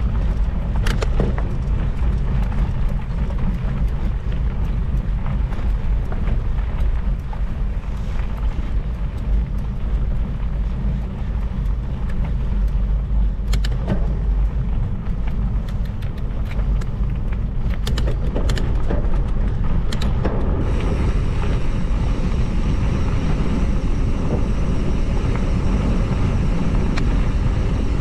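Steady low rumble of travel noise, as heard on board a moving vehicle, with scattered clicks and knocks. A little after two-thirds through, a brighter steady hiss joins in.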